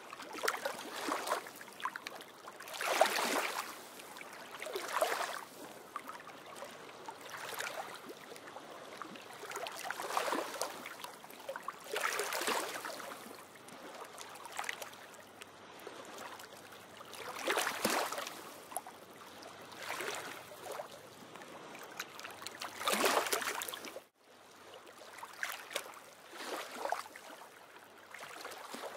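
Choppy lagoon waves breaking and splashing against a rocky shore, in irregular surges every few seconds over a steady wash of water. The sound cuts out for a moment about two-thirds of the way through, then the wave wash carries on.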